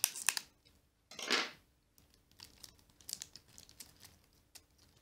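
Knife slitting the plastic shrink-wrap on a card-deck box, then the wrap crinkling and tearing as fingers pick it off. There are clicks near the start and a short rushing sound about a second in, followed by scattered small crackles.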